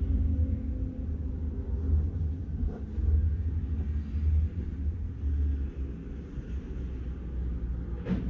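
Steady low rumble of background noise, with a brief faint tap near the end.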